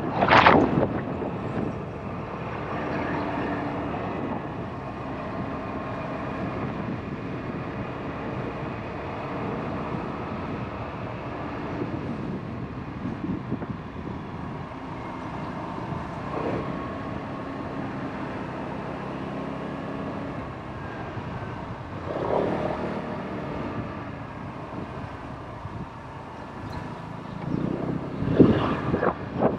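Motorbike engine running while riding along, its note shifting up and down with the throttle, under steady wind noise on the microphone. The sound swells louder a few times, most strongly near the start and near the end.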